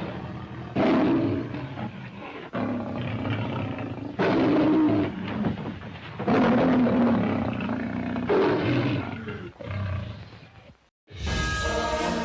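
A series of about five loud roars, each starting abruptly and trailing off, one after another. Orchestral music starts near the end.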